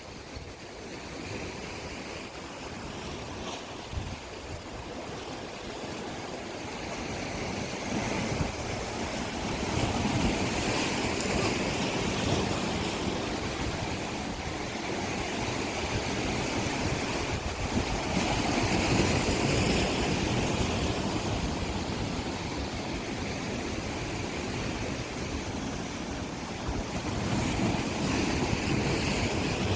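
Sea surf: waves rolling in and washing back, swelling louder every eight to nine seconds.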